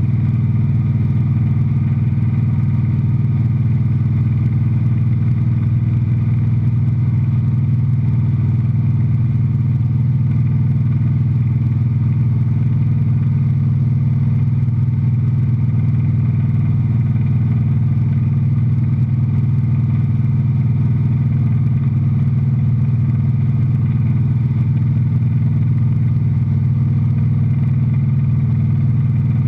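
Single-engine light aircraft's piston engine and propeller running steadily at cruise power, a constant even drone heard inside the cockpit.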